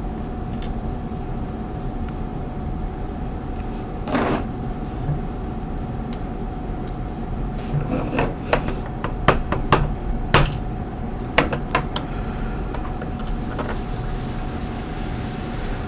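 Small sharp metal clicks and taps of tweezers and tiny driver pins against a padlock as the pins are pulled out, scattered, with most of them in a cluster in the second half. A steady background hum with a faint constant whine runs underneath.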